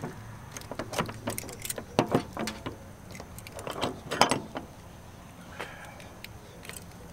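Keys jangling and metal clinking as the lock on a semi-trailer's rear door latch is worked open, in short spells about two and four seconds in. A low steady hum runs underneath.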